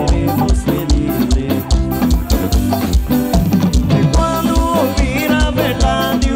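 Live lambadão band music: a steady drum beat with bass and melodic lines on top.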